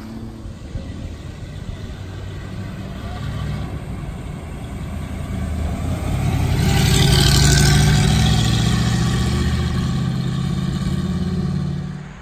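Early-1960s Chevrolet Corvette's V8 running at low revs as the car pulls past, swelling to its loudest about seven to eight seconds in. The sound cuts off abruptly near the end.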